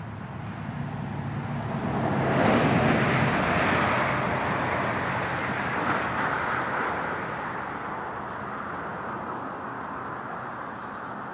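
A motor vehicle passing by: a broad rushing noise swells about two seconds in, holds for a couple of seconds and slowly fades away.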